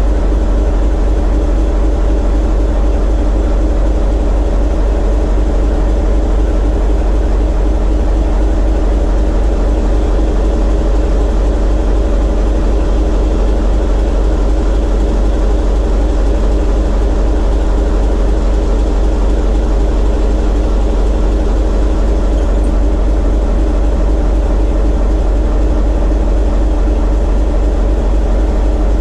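Diesel engine of a TEM2 shunting locomotive running steadily under heavy load, heard inside the cab: a load test into a water rheostat at the fifth controller position, with the engine being run in after a major overhaul.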